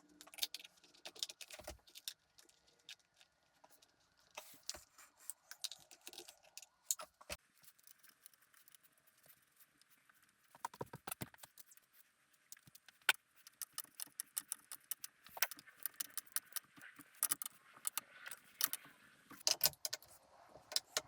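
Light clicks, taps and clinks of small metal parts and hand tools being handled, coming thicker and faster in the second half, as fuel rails and injectors are fitted to an intake manifold.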